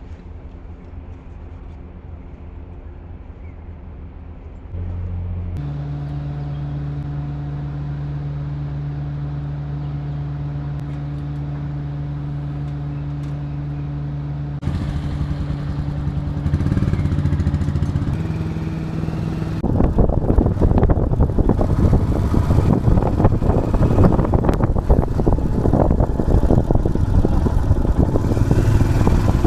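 A vehicle engine running steadily, changing note a little past the middle, then moving off with a loud, rough rushing noise of travel and wind on the microphone for the last third.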